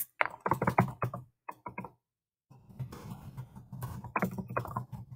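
Typing on a computer keyboard: two quick runs of key presses with a short pause between them.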